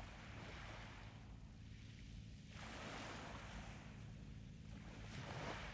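Faint harbour-side ambience: small waves washing in a few soft swells, over a steady low hum.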